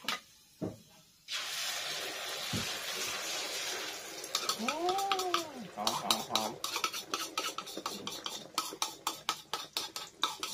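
Beaten egg hitting hot oil in a pan, sizzling loudly from about a second in. From about halfway a spoon scrapes and taps against the bowl several times a second as the last of the egg goes into the pan. A short rising-then-falling call sounds about halfway through.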